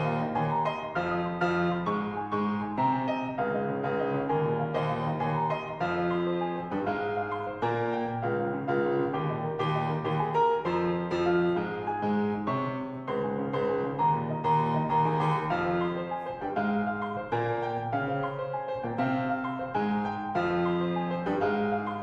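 Background music led by piano, steady melodic playing with no voices.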